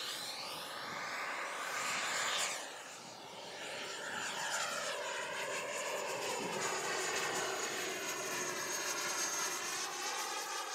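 Electric ducted-fan whine of a 64mm EDF model jet (XFly T-7A Red Hawk) in flight, sweeping up and down in pitch as it passes. It is loudest about two seconds in, drops off suddenly, then carries on as a steady high whine while the jet flies away.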